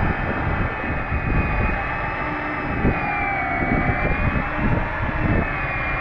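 Electric fishing reel's motor whining steadily as it winds line up from deep water, its pitch sagging slightly a few seconds in, over a low rumble.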